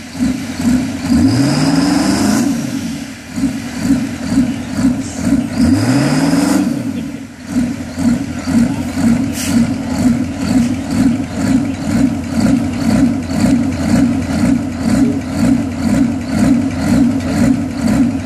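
Bandag Bullet burnout truck's engine revved hard twice in the first several seconds of a burnout, each rev climbing in pitch with a high whine on top. It then settles into a lumpy, loping idle that pulses about two to three times a second.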